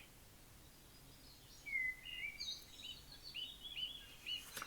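Birds chirping: short, high chirps, few at first, then a run of repeated chirps from about two seconds in. A brief click near the end.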